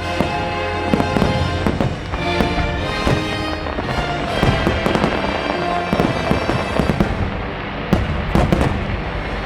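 Fireworks bursting and crackling in quick, irregular succession over the show's music soundtrack playing from park speakers.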